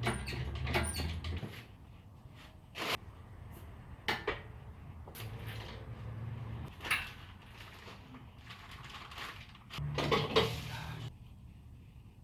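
A series of sharp knocks and clanks, as of metal parts and tools being handled during engine work, with a low hum coming and going. The loudest clatter comes near the end.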